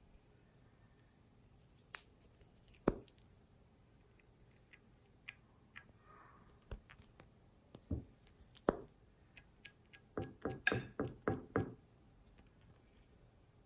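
Slime being pressed and worked by hand, giving scattered sticky pops and clicks, with a quick run of about eight pops near the end.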